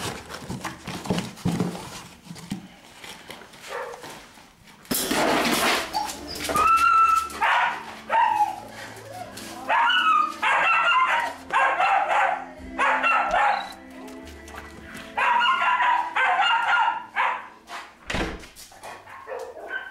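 A dog barking and whining in several quick runs of short, pitched calls, beginning about five seconds in after a noisy rustle.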